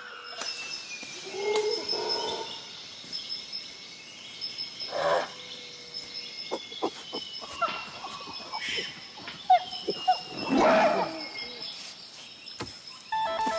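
Animal calls outdoors, several falling in pitch, with scattered clicks and knocks; music comes in near the end.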